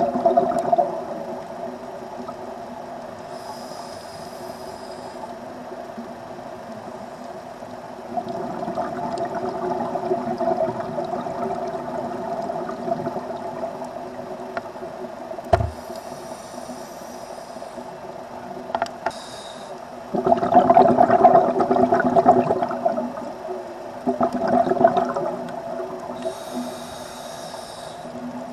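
A scuba diver breathing through a regulator underwater: a short hissing inhale, then a louder rush of exhaled bubbles, repeating about every ten seconds over a steady low hum. One sharp click about halfway through.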